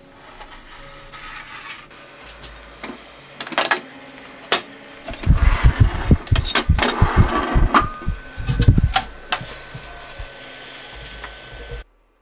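Metal baking tray clattering and scraping as it is slid onto the rails of an oven, a dense run of knocks and thuds in the middle, followed by the oven door being shut.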